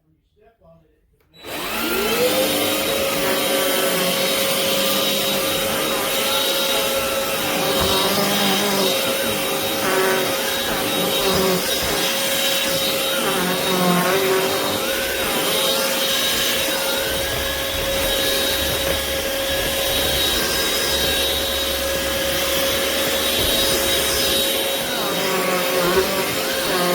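Craftsman V20 cordless stick vacuum switching on about a second and a half in. Its motor whine rises quickly to a steady high pitch, and it keeps running with a varying rushing noise of air over the whine.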